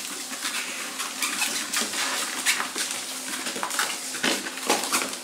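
Red miniature pinscher puppies scampering and play-scuffling, with many quick irregular clicks and taps of small claws and paws on a parquet floor and mat.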